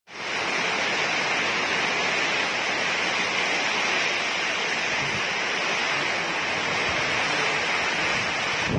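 Heavy rain falling, a steady even hiss that fades in over the first moment and holds without a break.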